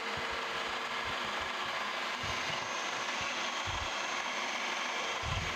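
Vertical milling machine running steadily with its spindle turning an edge finder, a steady mechanical hum with a faint whine, broken by three dull thumps.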